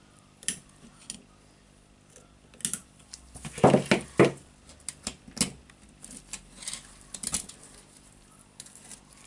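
Irregular metallic clicks and knocks of ring pliers working a spring retaining ring off a demolition hammer, with steel parts clinking against each other. The clicks are busiest a few seconds in.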